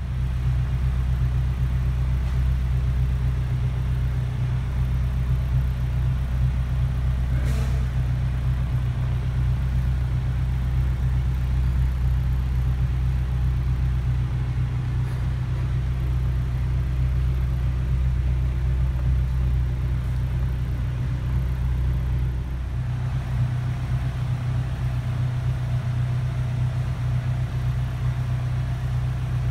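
Morgan Plus 4's four-cylinder engine idling steadily at about 1,000 rpm, heard from the driver's seat, with a single brief click about seven and a half seconds in.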